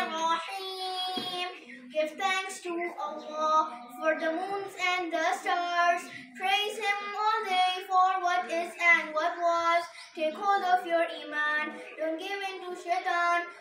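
A girl's voice singing a nasheed solo, without instruments, holding long notes that bend up and down between phrases.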